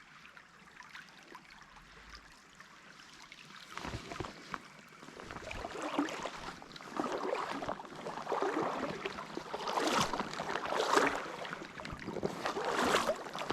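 Legs in waders wading through a shallow stream, water sloshing with each step. The steps start about four seconds in and repeat roughly once a second, growing louder.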